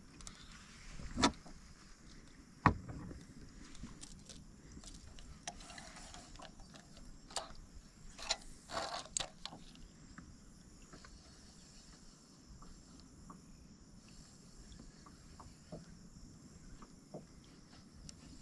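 Knocks and clicks of handling on a kayak: two sharp knocks in the first few seconds, a cluster of clicks and short rustles in the middle, then only faint scattered ticks.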